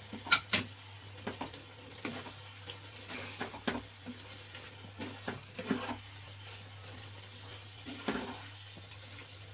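Wooden spatula stirring cooked vegetables in a non-stick kadai, with irregular scrapes and taps against the pan over a faint sizzle.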